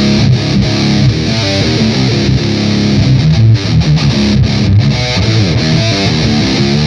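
Electric guitar played through an Electro-Harmonix Nano Metal Muff distortion pedal and a Mooer Radar 4x12 cabinet simulator: fast, heavily distorted metal riffing.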